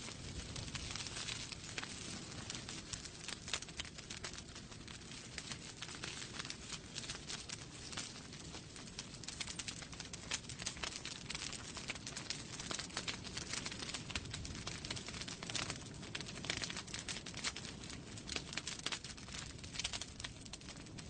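Wood fire crackling in a fireplace: a steady run of quick, irregular pops and snaps over a low, even rumble of the flames.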